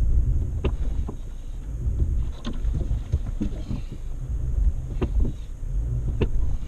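Off-road vehicle driving a rough dirt mountain road: a continuous low rumble with wind buffeting the camera microphone, and irregular sharp knocks and rattles several times as it jolts over bumps.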